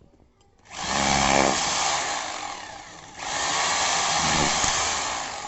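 DeWalt D25133K corded rotary hammer drill running in two bursts of about two and a half seconds each, its motor winding down after each run.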